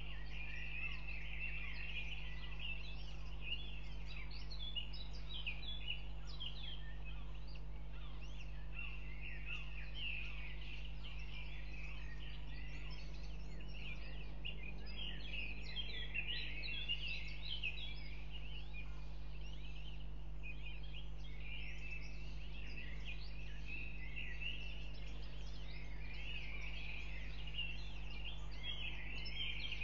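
Dense, high-pitched peeping of northern goshawk nestlings begging while being fed, over a steady low electrical hum.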